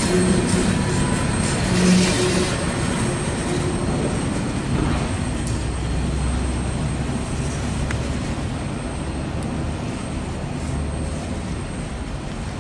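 Empty coal hopper cars of a freight train rolling away on jointed track, the wheel and rail rumble slowly fading. A steady low whine from the wheels runs through the first two seconds, and a deeper rumble sets in about five seconds in as the cars go onto a steel truss bridge.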